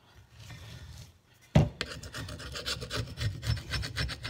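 Steel wood chisel scraping caked asphalt off a rusty double-bit axe head in quick, repeated strokes. It starts about a second and a half in with a sharp knock, the loudest sound, followed by the run of scraping strokes.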